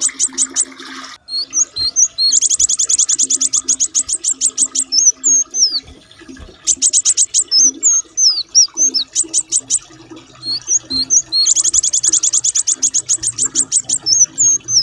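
Small songbird singing masteran-style 'roll tembak' song: bursts of very rapid, high repeated notes that roll for a second or two, three times, alternating with short looping whistles.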